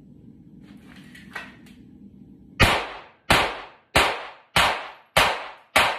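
Six 9mm pistol shots from a Glock 43X fired in a steady, even string about two thirds of a second apart: a Bill drill. Each shot rings briefly off the basement walls. Faint clicks come shortly before the first shot.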